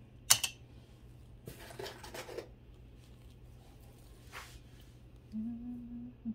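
Light handling of plastic bead jewelry: a sharp click early on, a soft rustle, then another small click. Near the end comes a brief low hum.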